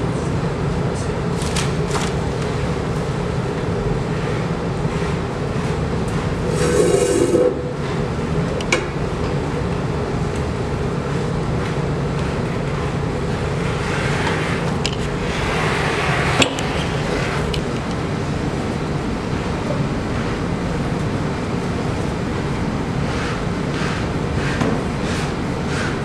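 Steady mechanical hum, with a short louder rustling burst about seven seconds in and a few light knocks and scrapes of clay being handled on a wooden board later on.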